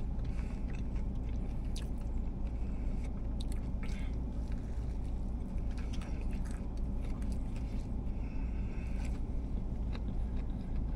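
Close-up chewing and biting into a fried cube steak biscuit, with scattered wet mouth clicks and smacks, over a steady low rumble inside the car's cabin.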